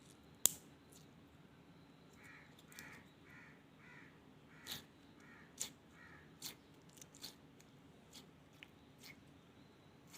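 Elmer's glue slime being handled close up, giving scattered sharp clicks and pops. About two seconds in, a run of about seven short caw-like calls sounds faintly in the background.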